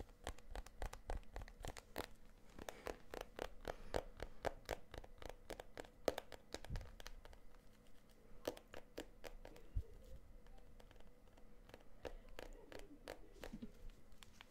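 Fingers tapping fast on a smartphone close to a microphone: a rapid, irregular run of crisp taps that thins out to scattered taps and light scratching over the second half.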